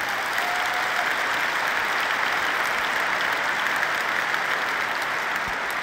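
Large arena audience applauding: a steady dense patter of many hands clapping, easing slightly near the end.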